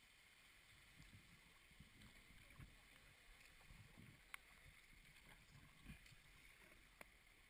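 Near silence: faint, irregular low bumps, with two sharp clicks, one about four seconds in and one near the end.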